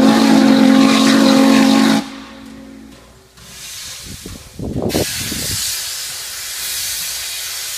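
Norfolk & Western 611's steam whistle blows one loud, low blast of about two seconds. About five seconds in, steam starts hissing loudly from the locomotive and keeps on, with a few low rumbles just before it.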